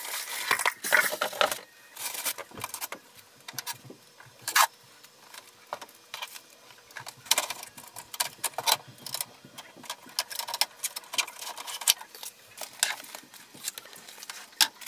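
Unpacking and handling a plastic inkjet printer: rustling of the packaging, then irregular sharp clicks and knocks of its plastic parts and tray being moved.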